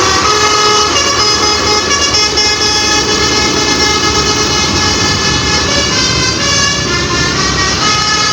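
Tour bus's telolet basuri multi-tone horn playing a melody of held notes that step from pitch to pitch, over the rumble of the bus engine and road noise.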